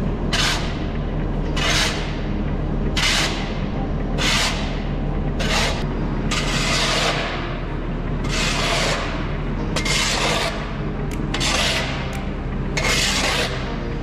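Steel shovel scraping damp sawdust bedding across a concrete floor: a run of about ten rasping scrapes, one every second or so, with a longer scrape about halfway through.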